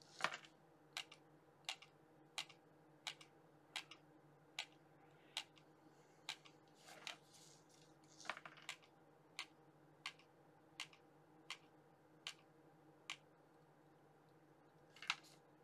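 Hot glue gun trigger clicking in a slow, even series, about one sharp click every three-quarters of a second, as glue is pushed into a silicone mold, with a few soft handling rustles and a faint steady hum underneath.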